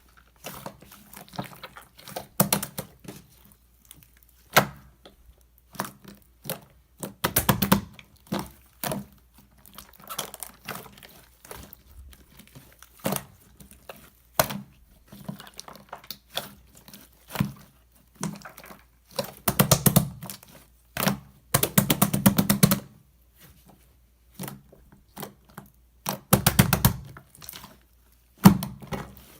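Hands pressing, folding and stretching slime, with irregular sticky clicks and several rapid runs of small pops as air pockets burst.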